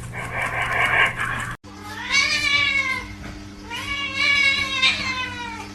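A cat meowing twice, two long drawn-out meows that each rise and then fall in pitch, over a steady low hum. Before them, a short hissy noise is cut off abruptly.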